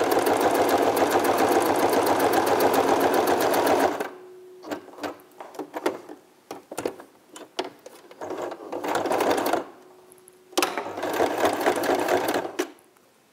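Electric sewing machine stitching in runs that stop and start: a steady run of about four seconds at the start, then small clicks and a short run, then another run of about two seconds near the end.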